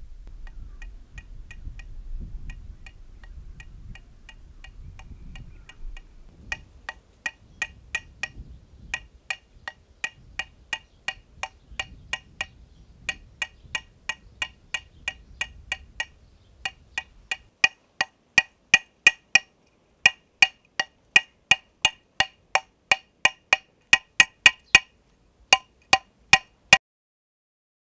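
Hammer taps on metal, about three a second in runs with short pauses, each with a bright ringing note: a twisted copper wire bracelet being hammered on a metal cobbler's last used as an anvil. The taps are faint at first and grow louder from about six seconds in.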